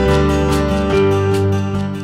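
Background music with strummed acoustic guitar, getting quieter toward the end.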